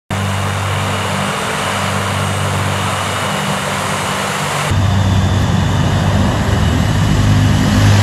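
Tu-95MS bomber's four Kuznetsov NK-12 turboprop engines with contra-rotating propellers running as the aircraft taxis: a loud, steady propeller drone with a deep hum. It grows louder a little before five seconds in.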